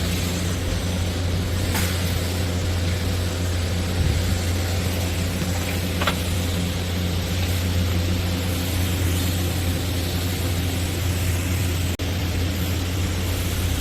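TIG welding on a stainless steel pipe joint: a steady, even hiss over a constant low hum from the welding set and shop, with a few faint ticks.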